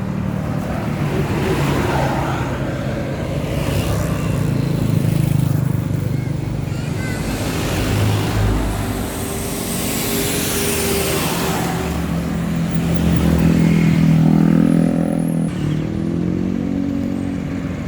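Large buses driving past on the road, their engines running under a steady wash of traffic noise. The noise swells as vehicles pass, about five seconds in and again near the end.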